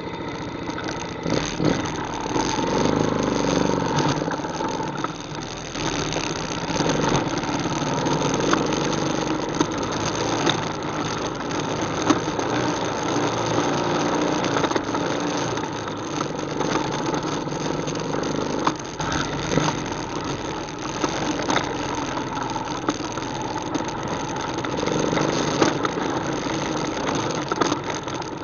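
ATV engine running as it is ridden, its sound swelling and easing every few seconds with the throttle, with scattered short knocks and rattles.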